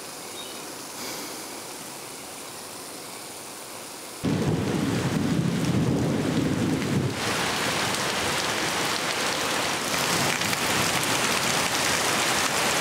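A faint sizzle of golibaje deep-frying in oil, then a sudden loud rumble of thunder about four seconds in that lasts about three seconds. Heavy rain follows, pouring steadily off a tiled roof.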